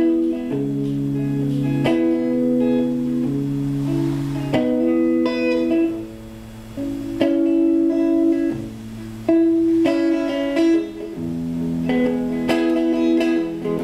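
Hollow-body archtop electric guitar played alone, plucked chords ringing out and changing about every second and a half as a song's introduction.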